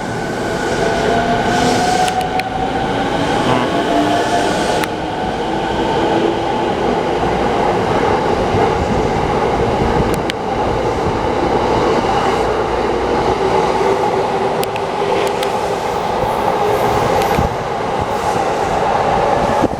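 E217 series fifteen-car electric train pulling out and accelerating, the cars running past with a steady rumble and wheel clatter over the rail joints. A faint motor whine rises in pitch over the first several seconds.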